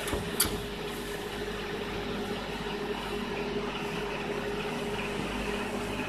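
Microwave oven running with a steady hum. A single sharp click about half a second in.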